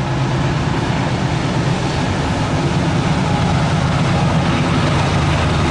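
Diesel freight locomotive engine running with a steady low rumble.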